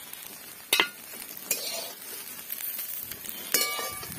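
Egg-coated soya chunks sizzling in an aluminium kadai, with a metal spatula scraping and stirring them. Sharp clinks of the spatula on the pan come a little under a second in and again near the end, the last one ringing.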